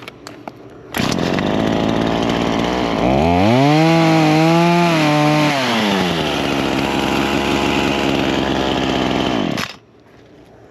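Chainsaw running. It revs up to a higher pitch for about two seconds in the middle, drops back, then stops suddenly near the end.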